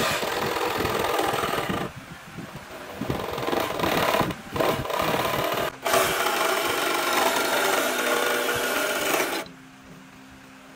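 Electric jigsaw cutting a notch into the end of a wooden board, the blade rasping through the wood in several runs with short breaks. The saw stops about a second before the end.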